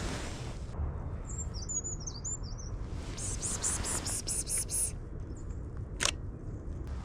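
Brown creeper singing: a thin, very high-pitched jumble of wavering notes lasting about two seconds. It is followed by a quick run of about eight short hissing bursts, and a single sharp click near the end.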